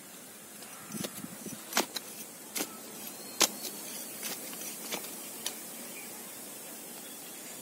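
A small curved-bladed hand digging tool strikes and scrapes into stony, gravelly soil, giving about seven sharp, separate chops with some grit rattling. The strikes stop a little past halfway through.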